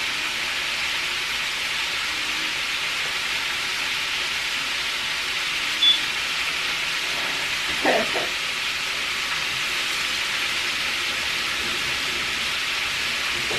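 Chicken frying on the stove: a steady sizzling hiss, with a short high beep about six seconds in.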